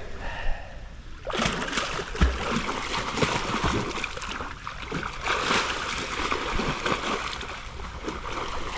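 Water splashing and sloshing as bears wade and swim, starting about a second in and carrying on steadily.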